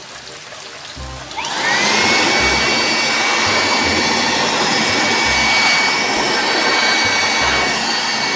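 Electric air blower switching on about a second and a half in: its motor spins up with a rising whine that levels off into a steady high whine over a rush of air. It is blowing rinse water off a wet bicycle frame to dry it.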